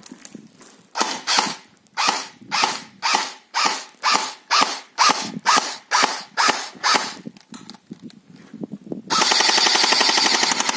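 A&K M4 airsoft electric gun (AEG) firing: a string of single shots, about two or three a second, then about nine seconds in a continuous full-auto burst. The gun is otherwise factory stock but fitted with a new SP100 spring.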